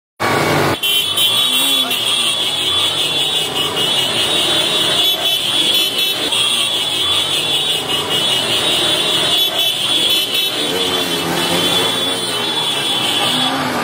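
Several sport motorcycles running as they ride by in a group, their engine pitch rising and falling.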